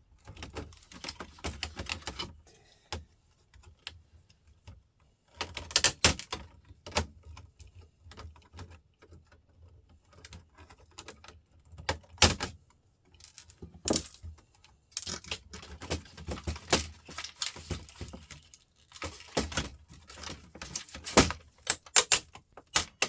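Irregular clicks, taps and rattles of small laptop parts and screws being handled and knocked together during a teardown, in bursts with short pauses between.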